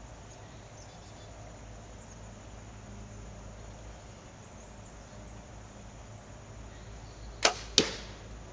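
A Bear Cruzer G2 compound bow is shot: a sharp snap as the string is released, and about a third of a second later a sharp smack as the arrow hits the target. Faint, steady insect hum underneath.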